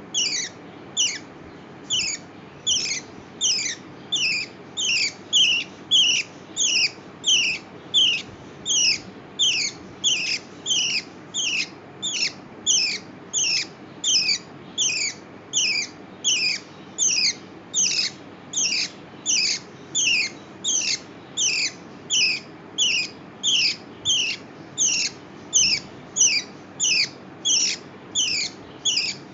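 Lovebird giving a repeated high-pitched chirp call, one sharp downward-sliding chirp about every 0.6 seconds, kept up at an even pace without pause.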